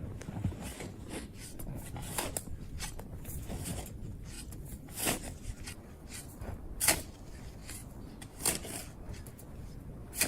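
Irregular short crunches and knocks, a second or two apart, the loudest about five, seven and eight and a half seconds in, over a low steady background noise.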